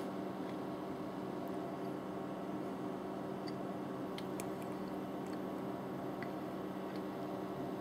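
Steady low hum of indoor room noise, with a few faint clicks about four seconds in.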